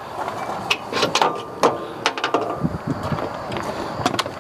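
Wrenches and metal parts clinking and knocking in a string of sharp clicks and clunks, some briefly ringing, as the bolts are undone and the stock shock is taken off a Yamaha Rhino's suspension.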